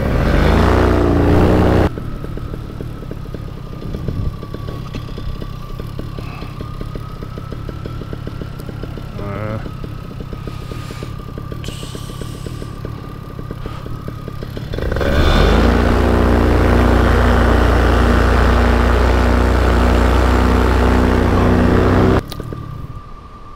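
Paramotor engine and propeller: a loud burst of throttle for the first two seconds, then running quieter at low throttle with a steady whine. At about 15 seconds it is opened up to high power and held, then cuts off abruptly a little over a second before the end.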